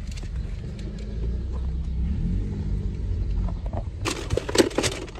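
Car engine and road rumble heard from inside the cabin, the engine note rising about two seconds in as the car pulls forward. Near the end comes a burst of rustling and clicking close to the microphone.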